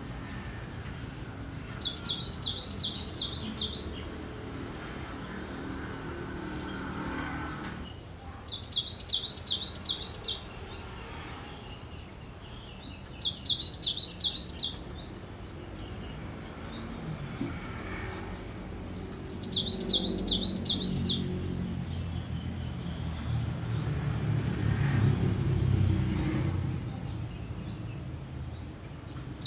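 Cinereous tit singing: four short bursts of rapidly repeated high, ringing notes, each lasting about a second and a half and several seconds apart, with soft single call notes in between and a fifth burst starting at the very end.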